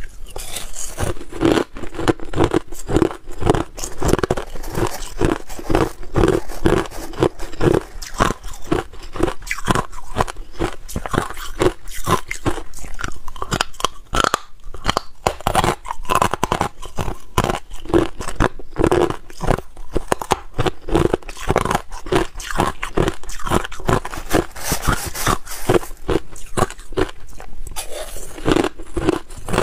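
Crushed ice being bitten and chewed: a dense run of sharp crunches, several a second, as the hard ice pieces break between the teeth.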